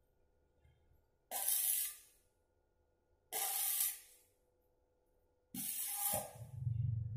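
Electric arc welding on a steel bicycle frame: three short bursts of crackling arc sizzle, each laying a tack weld, with silence between. The third burst runs longer, and a low hum comes in under it near the end.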